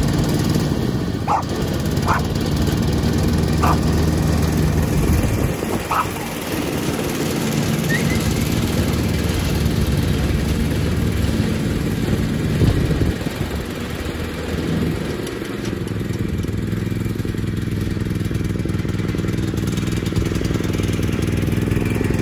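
Riding lawnmower engine running steadily under load while mowing grass, its drive belt just refitted after slipping off. The engine note dips briefly about six seconds in and again around fourteen seconds.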